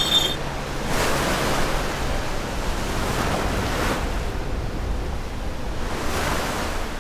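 Ocean surf sound effect: waves washing in and falling back in three swells a few seconds apart, over a low steady rumble. A brief high chime rings at the very start.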